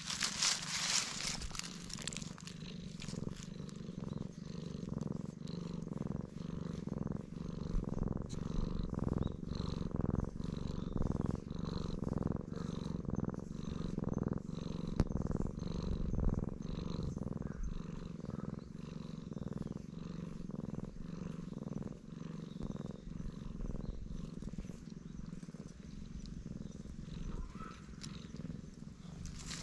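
Cat purring loudly in regular pulses while it is stroked, a sign that it is enjoying the petting. A brief rustle sounds at the very start.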